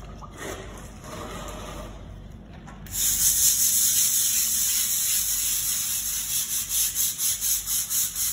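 Stiff-bristled hand scrub brush scrubbing a rough, wet tile floor, starting suddenly about three seconds in. The bristles scrape in quick back-and-forth strokes, about three a second near the end.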